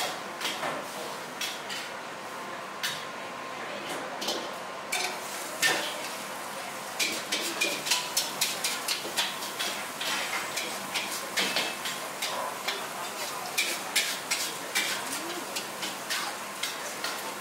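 Metal ladle clanking and scraping against a wok while pad thai is stirred, over a steady frying hiss. The strikes are sparse at first, then come several a second from about seven seconds in.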